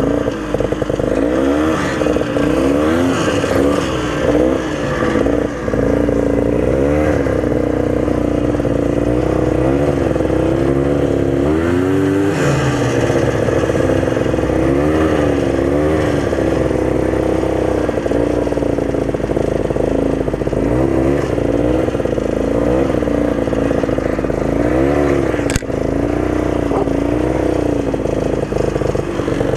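34-year-old Ski-Doo snowmobile's two-stroke engine running under way, its note rising and falling over and over as the throttle is worked.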